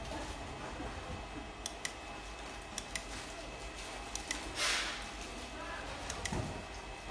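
Scattered sharp clicks from the light bar's handheld control box as its buttons are pressed, with one short hiss about four and a half seconds in.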